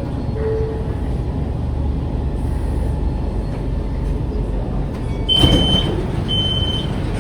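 Steady low rumble inside a CSR Zhuzhou light rail vehicle. About five seconds in comes a sudden rush of noise, then a high, even beep repeating about once a second, the train's door warning chime.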